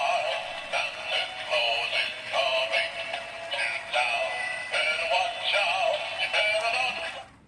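Battery-operated Santa Claus toy playing a Christmas song through its small, tinny speaker, with a recorded singing voice over the tune. It cuts off suddenly near the end.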